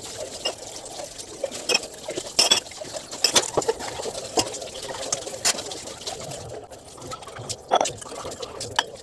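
Tap water running into a kitchen sink while dishes are washed by hand, with frequent sharp clinks and clatters of steel utensils and bowls being handled and set down.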